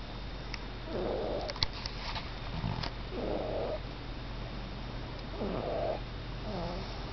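Slow, even snoring: about four snoring breaths spaced roughly two seconds apart.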